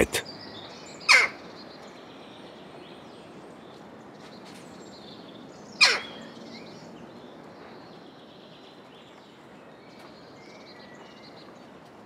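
Jackdaw giving two short, sharp calls about five seconds apart, each a quick downward sweep in pitch, over a faint steady background hiss.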